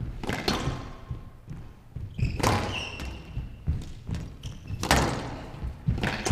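Squash rally on a glass court: sharp cracks of the ball off racket strings and walls about once a second, each ringing on in the large hall. A brief high squeak comes about two and a half seconds in.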